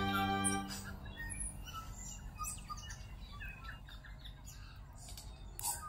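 Birds chirping and tweeting, many short scattered calls, with a louder call near the end. A held musical chord fades out about half a second in.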